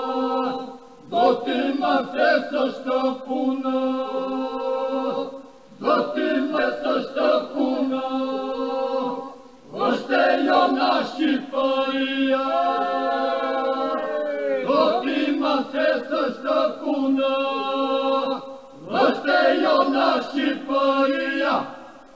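Choral singing without instruments: a choir sings sustained, chant-like phrases, with short breaks between them.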